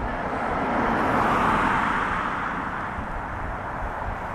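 A car driving past, its tyre and road noise swelling to a peak about a second and a half in and then fading away.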